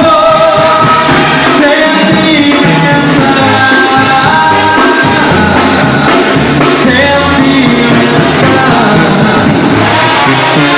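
Mexican banda playing live and loud, a sung melody over the band with a pulsing low bass line underneath.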